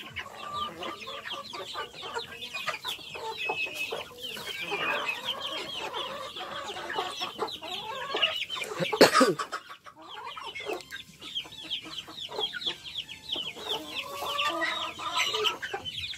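Chickens clucking continuously while feeding, with many short, high peeping calls over the top and one brief louder sound about nine seconds in.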